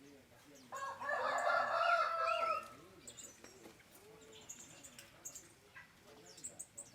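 A rooster crowing once, a loud call of about two seconds starting near the first second, over faint cooing and small-bird chirps from an aviary.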